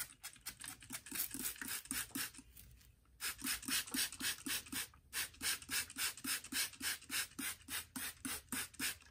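Hand trigger spray bottle misting water onto a curly wig: a quick run of short hissing squirts, about three to four a second, with a brief pause about three seconds in.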